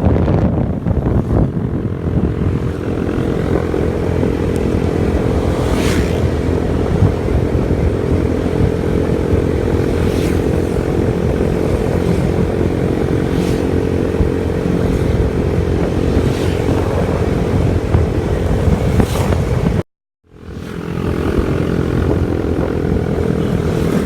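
A motor vehicle's engine running steadily while on the move, with road and wind rumble. The sound drops out for a moment about 20 seconds in, then comes back.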